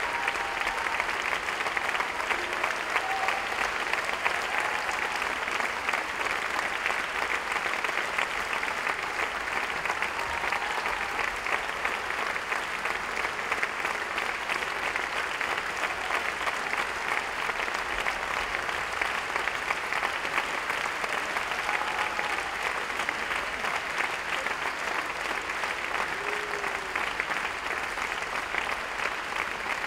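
Theatre audience applauding steadily, a dense, even clapping that holds at the same level throughout.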